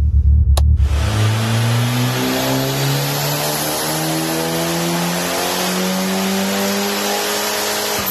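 Ford Escort RS Cosworth's big-turbo 2.0-litre Cosworth YB four-cylinder at full throttle on a four-wheel-drive rolling road, its pitch climbing steadily for about seven seconds: a dyno power run. A sharp click sounds about half a second in.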